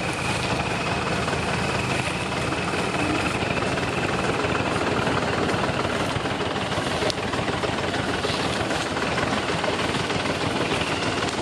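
A vehicle engine running steadily under a dense rushing noise, with a faint high steady whine that fades out a few seconds in.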